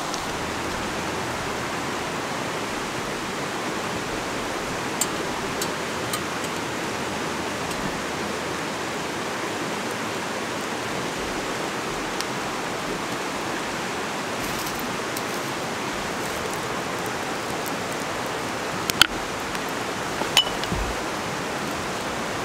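Steady rush of a river flowing, with a few scattered sharp clicks, the two loudest near the end.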